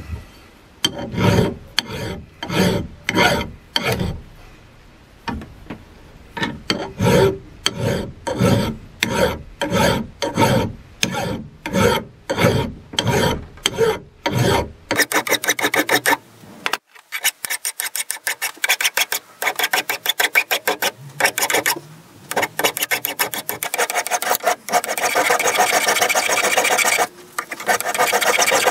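Hand file rasping across an old steel hammer head, in long even strokes about one a second. About halfway it changes to quicker, shorter strokes that run almost together, as the file dresses the edge of the striking face.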